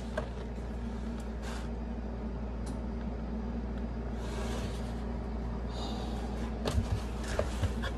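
Steady low hum, with a brief rustle of paper about four seconds in and a few light knocks near the end as the cardboard pizza box and its paper liner are handled.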